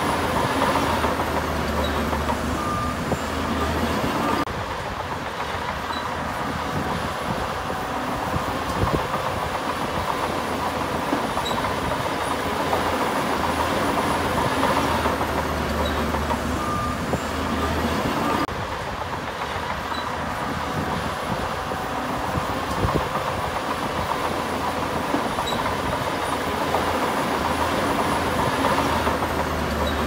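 Heavy earthmoving machinery running: steady diesel engine noise with a low hum, changing abruptly at about four seconds and again at about eighteen seconds.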